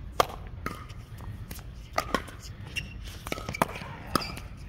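Pickleball rally: paddles striking the hollow plastic ball, a string of sharp pops roughly every half second, two in quick succession about two seconds in.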